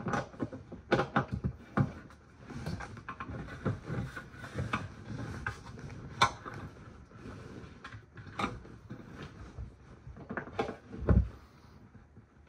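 Handling noise inside a clear plastic tub: crinkly plastic sleeves rustling, with a string of knocks and clicks as glass jars and tools are moved about. A heavier thump comes near the end.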